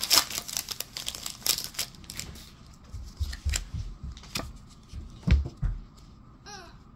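A foil booster pack wrapper being torn open and crinkled, with a few dull thumps of handling.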